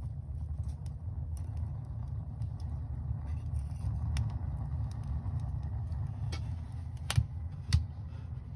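Wood fire burning in a wood stove: a steady low rumble with scattered faint crackles and two sharper clicks near the end.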